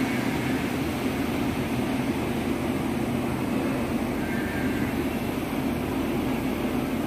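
Steady low rumble and hiss of a train.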